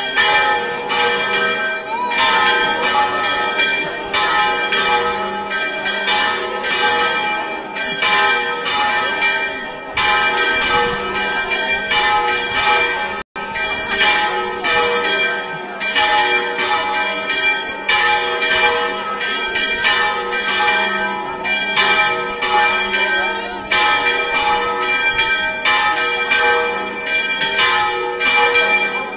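Church bells pealing, struck in rapid succession with overlapping ringing tones.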